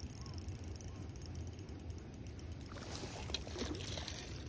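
A hooked trout splashing at the surface as it is scooped into a landing net, a burst of thrashing water about three seconds in, over a steady low rumble.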